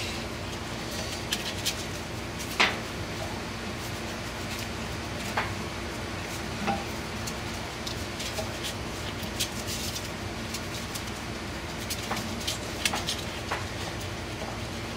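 Scattered light metal clicks and clinks of a gear puller being handled and its screw turned by hand on a squirrel cage blower wheel's hub, the loudest about two and a half seconds in and a few close together near the end, over a steady low hum.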